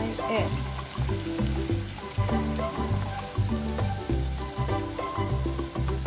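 Food sizzling in a hot wok as beaten egg is poured in, with a steady hiss. Background music with a regular, heavy bass beat plays over it.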